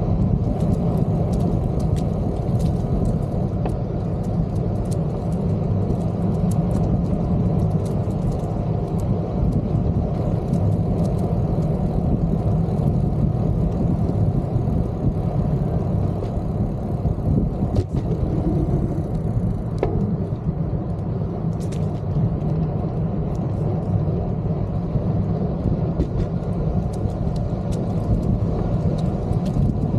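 Steady rumble of wind on a bike-mounted camera's microphone and a bicycle's tyres rolling on a paved path, with scattered small ticks and rattles.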